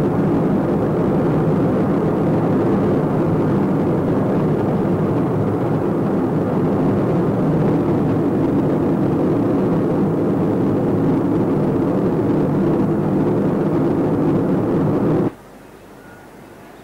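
Steady drone of a moving car, its engine and road noise heard from inside the cabin. It cuts off abruptly near the end, leaving a much quieter background.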